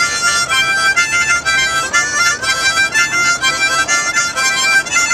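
Blues harmonica played live, sounding short chords that change in a quick, repeating rhythm.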